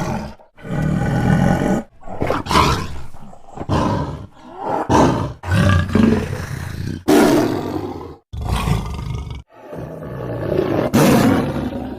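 A string of about ten short lion roars and growls, one after another with brief gaps, each lasting from half a second to a second and a half.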